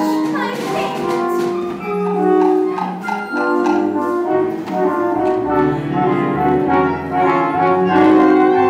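Live pit orchestra playing an instrumental passage, with sustained notes shifting from chord to chord.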